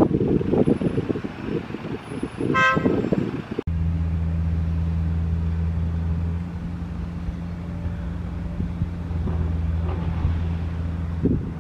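A city bus drives round with low rumbling wind on the microphone, and a short vehicle horn toot about two and a half seconds in. After a sudden cut comes a steady low diesel engine hum of vehicles idling in street traffic.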